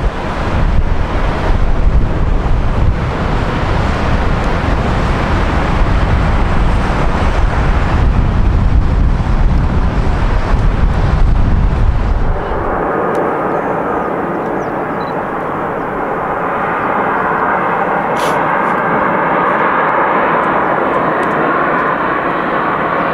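Boeing 777-300ER's GE90 jet engines at takeoff power, a deep rumble with wind on the microphone. About halfway through it cuts abruptly to a second jet airliner, a Brussels Airlines Airbus A330-300, whose engine noise carries a steady high fan whine.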